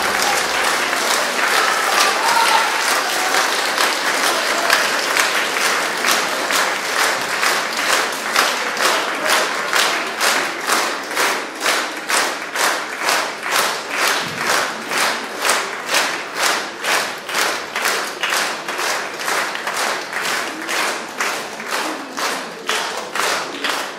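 Concert audience applauding, with a few voices calling out at first. After about six seconds the clapping falls into rhythmic clapping in unison, about two claps a second.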